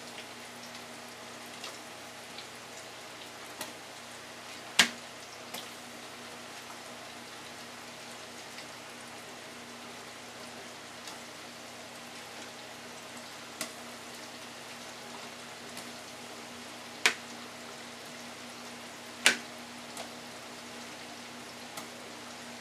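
Battered chicken nuggets frying in an electric deep fryer of hot olive oil: a steady sizzle over a low steady hum, broken by a few sharp clicks, the loudest about five, seventeen and nineteen seconds in.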